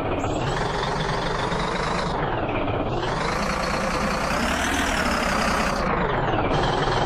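Heavy diesel engine running loud under load, its revs dipping, then climbing to a peak about two-thirds of the way through and dropping back.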